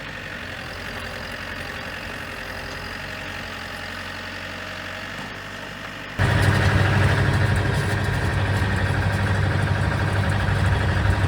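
Tractor engine running steadily while clearing snow. About six seconds in it turns abruptly much louder and stays loud.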